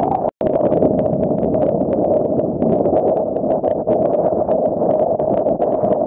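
Strong wind on the microphone and choppy sea water sloshing around a camera at the water surface: a steady, muffled rushing with many small splashy ticks. The sound cuts out for an instant near the start.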